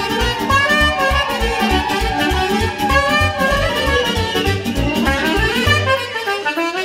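Live band dance music with a soprano saxophone playing a fast melodic line over a quick, even bass beat; about six seconds in the beat drops out under a held bass note.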